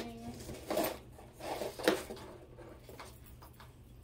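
Costume jewelry clinking and rattling as a pile of metal chains, bangles and acrylic beads is handled and sorted, in a few short clattering bursts about one and two seconds in.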